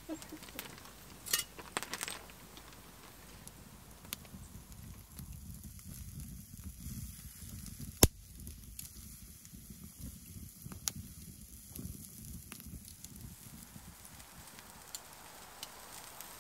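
Wood campfire crackling and popping under chicken strips sizzling on a wire grill grate, with scattered sharp clicks and one loud pop about halfway through.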